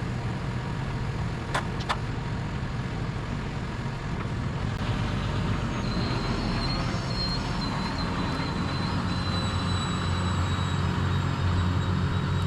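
Farm tractor engine running steadily under load as it drives across a field, heard from inside the cab. There are two short clicks about one and a half seconds in, and a thin high whine starts about halfway through and holds.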